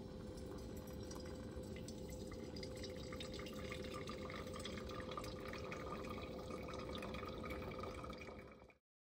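Hot water poured from a camping kettle in a thin stream onto coffee grounds in a paper filter cone, trickling and dripping steadily. It cuts off abruptly near the end.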